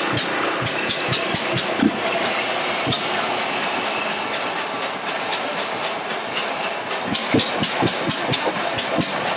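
Large antique stationary engine with twin spoked flywheels running. Its rhythm of sharp clicks gets quicker and louder about seven seconds in, to roughly four a second, over a steady rush of water pouring from its pump outlet into a tank.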